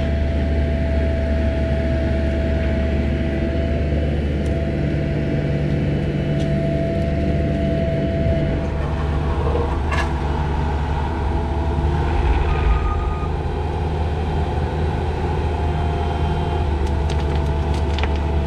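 Engine of a piece of construction equipment running steadily under work, with a thin steady whine held above its low hum.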